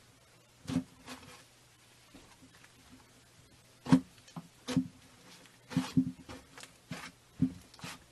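Slime being handled: about ten short, irregular squishes and pops, the loudest about four seconds in.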